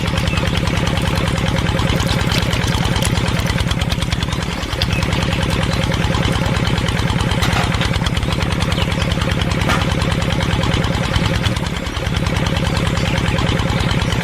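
Engine running steadily with a fast, even chug, dipping briefly twice, about four and a half seconds in and again near twelve seconds.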